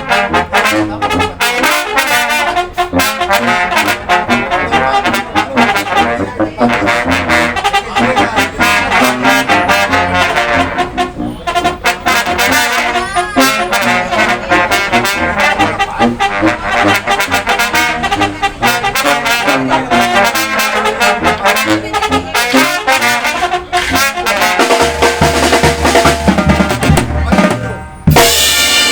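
Mexican banda music: trumpets and trombones playing over a tarola snare drum and bass drum. The music dips briefly near the end, then comes back in loudly.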